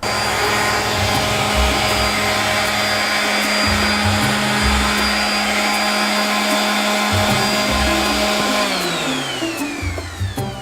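Electric sander running with a steady high motor whine, then switched off near the end, its pitch falling as it spins down.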